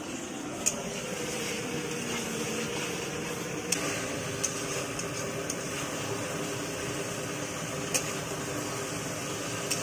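Chicken and potato curry sizzling in a steel kadhai on a portable gas stove, a steady hiss, with a few sharp clinks now and then as a steel spatula stirs it against the pan.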